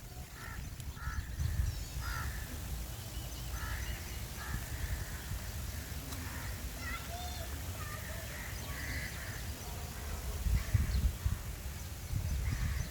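Birds calling: repeated short caw-like calls mixed with higher chirps. A low rumble runs underneath and grows louder near the end.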